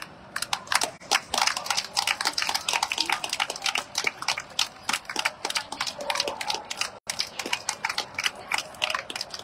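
Scattered hand clapping from a few people: sharp, irregular claps, several a second, starting just after the beginning and stopping near the end.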